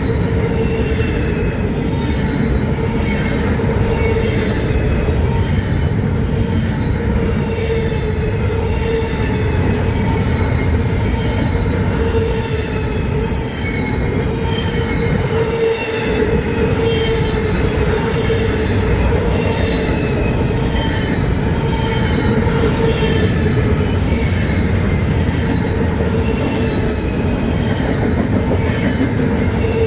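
A train rolling past at close range: a continuous loud rumble of wheels on rails with a steady whine held throughout.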